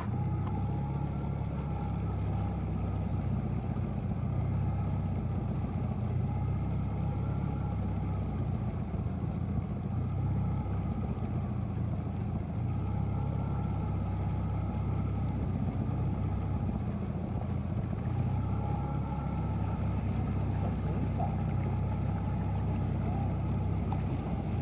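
Outboard motors running steadily at speed: the motorboat's own engine close by and a 4 hp outboard pushing a canoe. A steady low hum with a fainter whine above it that wavers a little in pitch.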